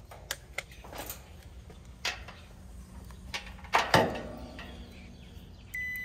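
Meter test leads and tools clicking and knocking against the compressor's metal terminals, with a louder knock about four seconds in. Near the end a multimeter gives a short high continuity beep, the sign of a compressor terminal shorted to ground.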